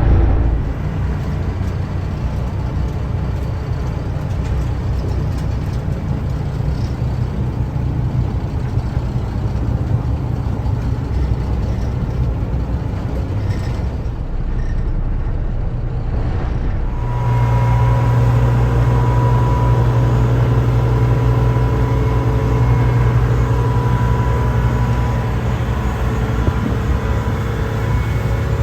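A boat's engine running steadily. About 17 seconds in, the sound shifts to a stronger low hum with a steady whine above it.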